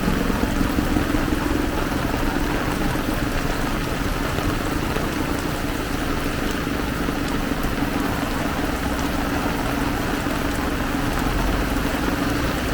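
Heavy rain pouring down in a steady hiss, with the steady low hum of a vehicle engine running under it.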